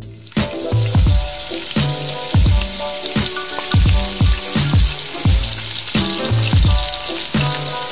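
Panko-coated arancini (rice balls) deep-frying in hot oil: a steady sizzle of bubbling oil that starts a moment in as the first ball goes in. Background music with a steady beat plays over it.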